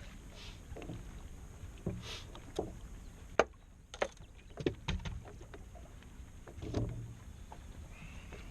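Scattered knocks and clatter in a fishing boat as a fish that has just been landed is handled. The sharpest knock comes about three and a half seconds in, with a duller thump near the end, over steady wind and water noise.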